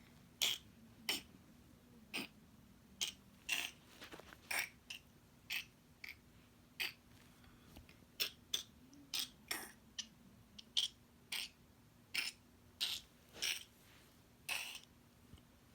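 A run of sharp clicks, about one to two a second and unevenly spaced, over a faint steady hum.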